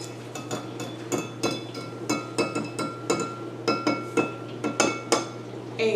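Eggs being beaten with a whisk in a bowl: an uneven run of clinks, about two or three a second, each leaving a brief ringing from the bowl. The strikes get louder near the end.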